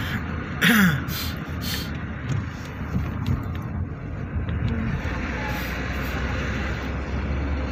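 Car cabin noise while driving: steady road and engine sound. Within the first two seconds there are a short voice sound with a falling pitch and a few sharp clicks.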